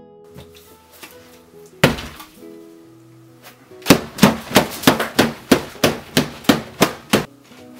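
Hands and arms slamming down on a dinner table, a single hard thump about two seconds in, then a fast run of about a dozen thumps, roughly three a second, with plates and cutlery clattering. Background guitar music plays throughout.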